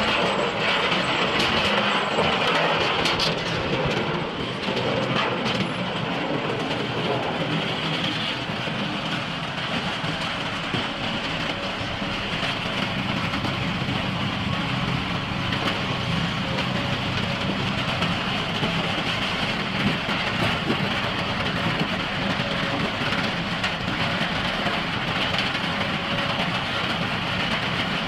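Machinery running steadily: an engine hum under dense mechanical noise, with a few sharp clicks in the first few seconds.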